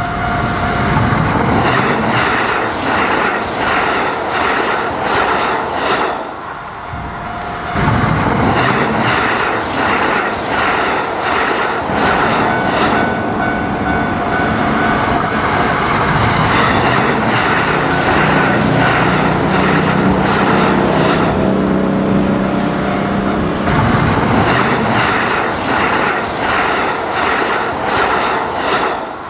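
Kintetsu train running past a level crossing, its wheels clacking rhythmically over the rail joints, while the crossing's warning bell rings. The sound eases briefly about six seconds in, and a low motor hum comes through in the middle stretch.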